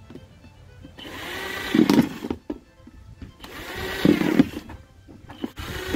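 A 12-volt cordless drill run in two bursts of a second or so each, its motor whine rising and falling as the bit bores into the thin plastic bottom of a bucket. A third burst starts near the end.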